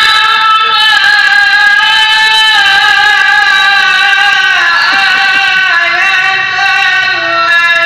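A young man's high voice chanting long, drawn-out melodic notes into a microphone, each note held for seconds with ornamented turns; the melody steps down in pitch about five seconds in.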